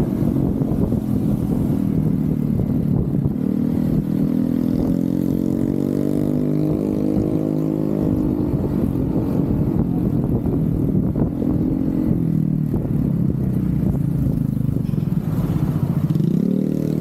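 Honda ADV scooter's single-cylinder engine running under way, its pitch rising as it accelerates a few seconds in, then dropping and climbing again near the end as the rider eases off and speeds up in traffic.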